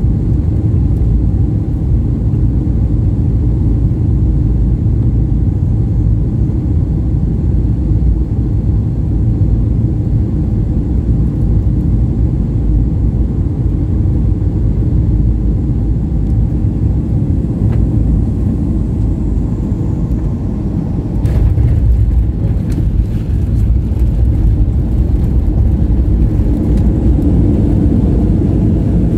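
Cabin noise of a Boeing 737-900ER landing: a steady low rumble of engines and airflow, then about two thirds of the way through the wheels touch down with a sudden bump and a short run of knocks and rattles, and the rumble is louder as the jet rolls down the runway.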